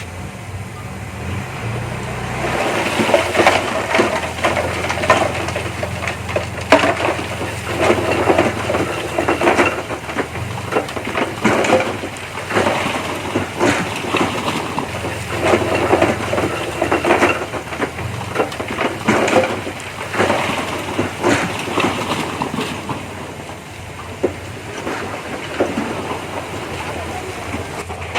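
Small bulldozer's diesel engine running steadily, with frequent irregular metallic clanks and knocks from its tracks and blade working.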